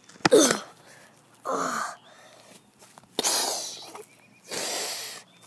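A person's voice making short non-word sounds, four in all. The first is a short squeal falling in pitch, then comes a brief grunt, then two longer breathy huffs.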